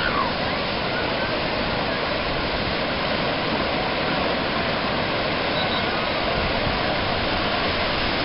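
Steady rush of breaking surf and churning water in an artificial wave pool, an even, unbroken wash of noise.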